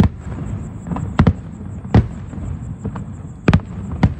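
Aerial firework shells bursting overhead in a quick series of sharp booms, about six in four seconds, some in close pairs, with a low rumble between them.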